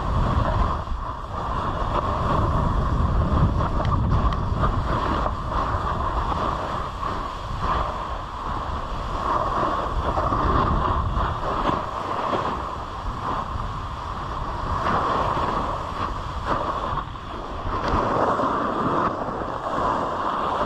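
Snowboard sliding and turning through soft, chopped snow: a rough hiss of the board on snow that swells and fades, mixed with wind buffeting the camera microphone.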